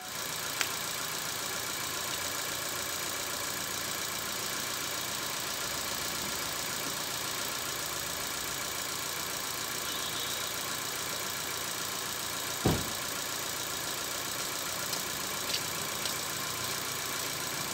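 Ford EcoSport's petrol engine idling steadily under the open hood, warming up from cold. A single dull thump about two-thirds of the way through.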